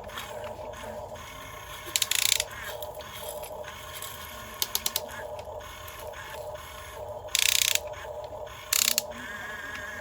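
Small geared electric motors of a toy excavator whirring steadily, with several short loud clattering bursts: one about two seconds in, a quick run of clicks around the middle, and two more near the end.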